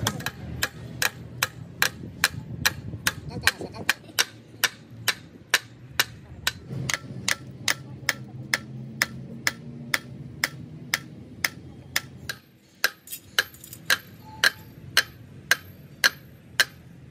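A hammer striking metal in quick, even blows, about three a second.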